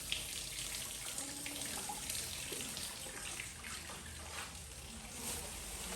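Water running from a kitchen tap into a sink, with a few light clicks and knocks of things handled under the stream.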